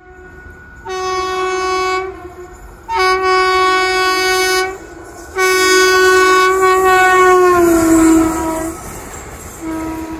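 WAP-7 electric locomotive sounding its horn in three long blasts as it runs through at speed. The third blast drops in pitch as the locomotive passes, and a short fourth blast comes near the end over the rattle and rush of the passing coaches.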